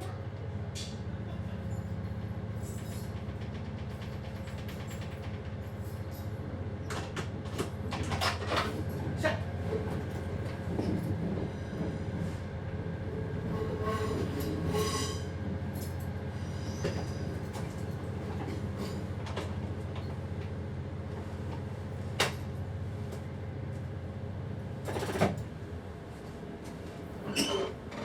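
Passenger train running along the track, heard from the driver's cab: a steady low rumble with scattered clicks and knocks from the wheels over rail joints and points, two sharper knocks near the end.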